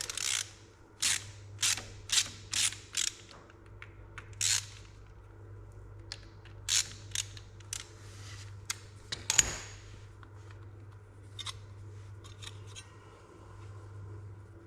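Hand tool working the final drive oil plug loose on a Yanmar B37-1 excavator: short rasping metal strokes, about two a second for the first three seconds, then scattered ones, the loudest a little after nine seconds in.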